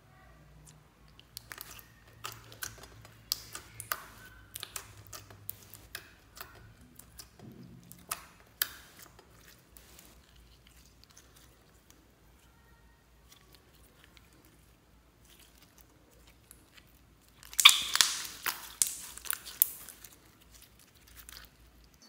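Clear slime with star confetti being stretched and squished by hand, giving wet, sticky clicks and pops. It goes quiet for a while midway. Then a dense, louder run of crackling squelches comes near the end.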